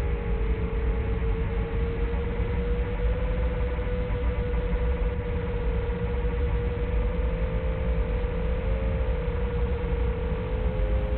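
A tiny 1S FPV quadcopter's motors and propellers humming steadily in flight, a few close pitches wavering and crossing one another, over a heavy rumble of wind noise.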